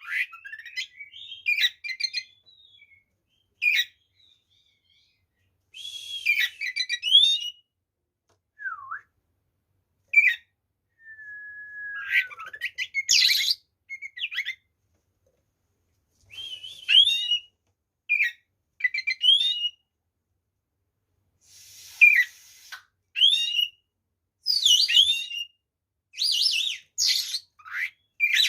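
Oriental magpie-robin (kacer) singing its full, fighting-mood song: loud, varied phrases of whistles, trills and chirps with some gliding notes, in short bursts separated by pauses of a second or two.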